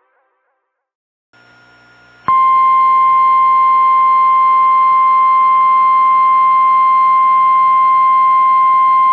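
After a second of silence and a faint hum, a loud, steady single-pitch alert tone starts about two seconds in and holds: the 1050 Hz warning alarm tone of NOAA Weather Radio, sounded ahead of a tornado warning.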